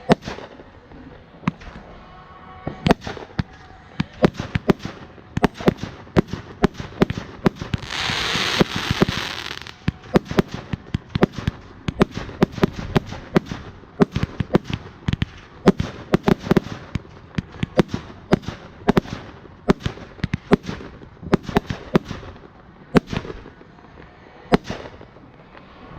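Fireworks and firecrackers going off, a dense, irregular run of sharp bangs and pops. A loud hissing burst rises over the bangs about eight seconds in and lasts about two seconds.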